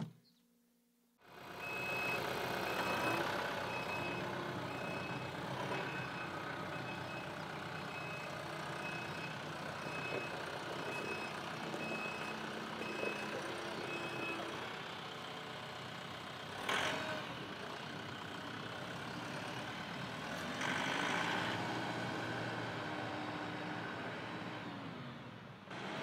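TYM T654 compact tractor's diesel engine running as the tractor moves off, with a reverse alarm beeping about once a second for the first half while it backs up. A single knock about two-thirds through.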